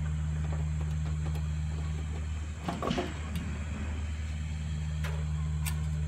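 A steady low hum, with a short cluster of clicks and knocks about halfway through and a couple of single clicks near the end as the magnetron is unscrewed and worked loose from the microwave's metal chassis.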